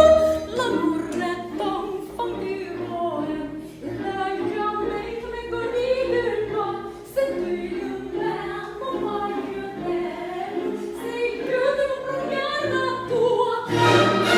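Soprano singing in operatic style, with vibrato.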